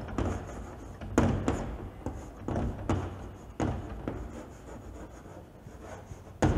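Chalk writing on a blackboard: a run of short taps and scrapes as the words are written out, with a sharper knock near the end.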